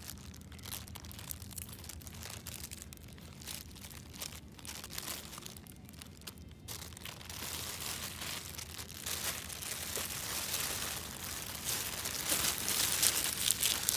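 Thin plastic carrier bag crinkling and rustling as it is handled and gripped, with a crackling sound that grows louder in the second half.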